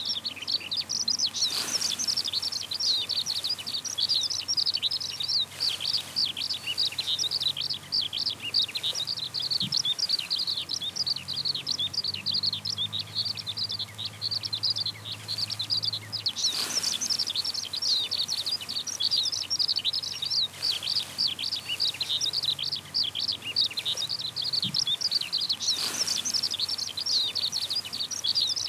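Eurasian skylark singing: a long, unbroken stream of rapid high chirps and trills with no pauses.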